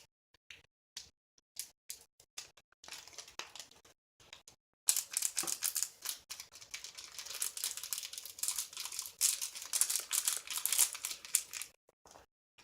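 Crinkling and rustling of plastic being handled, dense and crackly from about five seconds in until shortly before the end, after a few scattered light taps and clicks.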